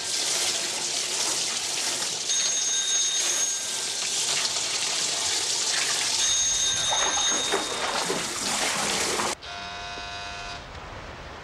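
Water gushing and splashing as it floods a kitchen floor from a leaking dishwasher supply hose at the tap. A telephone rings in short bursts about every four seconds over it. The water sound cuts off abruptly about nine seconds in.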